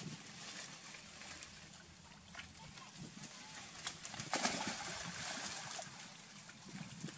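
Macaques dropping from an overhanging tree into a river: scattered rustling of leaves and branches, then about four seconds in a loud rush of splashing water lasting over a second.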